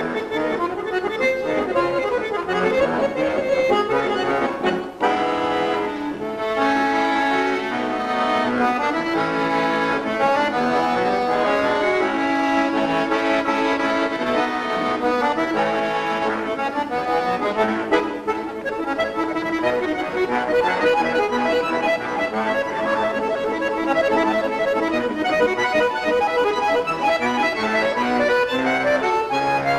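Solo bayan (chromatic button accordion) playing a round-dance piece, melody notes over accompanying chords, with a very short break about five seconds in.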